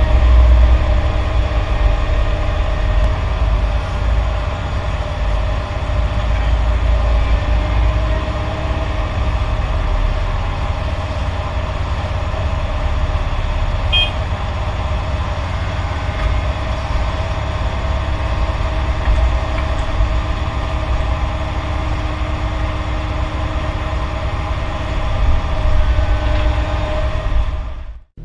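Heavy diesel construction machinery running steadily, with a deep rumble and an even engine drone. A short high chirp sounds about halfway through.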